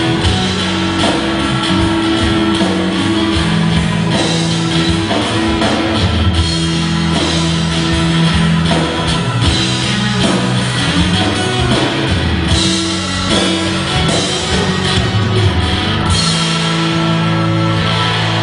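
Live rock band playing, with electric guitar, bass guitar and drum kit.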